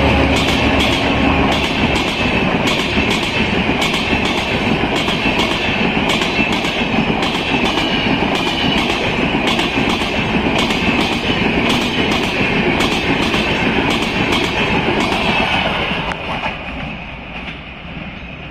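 Indian Railways LHB passenger coaches passing at speed: wheels clatter over rail joints about twice a second over a steady rolling hiss. The sound fades near the end as the last coach draws away.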